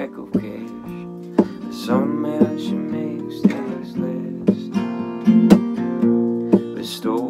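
Steel-string acoustic guitar, capoed, strummed in chords struck about once a second, with a man singing over it in places.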